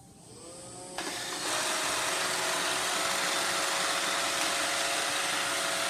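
Robot vacuum starting up: its motor spins up with a rising whine over about the first second and a half, then runs steadily with a loud, even hiss and a held hum.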